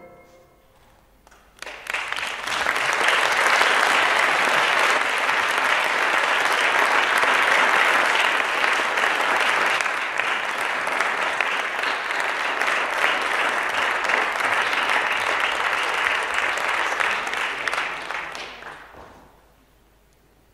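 Audience applauding at the end of a ballet solo. The clapping starts suddenly about two seconds in, holds steady for some fifteen seconds, and dies away about a second and a half before the end.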